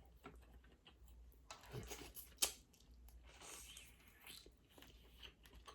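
Faint eating sounds close to the microphone: small clicks and crackles of seafood shells being cracked and picked apart, one sharper crack about two and a half seconds in, and soft chewing.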